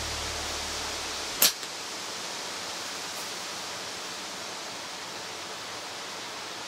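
Steady wind noise on the microphone, with a single sharp crack about a second and a half in.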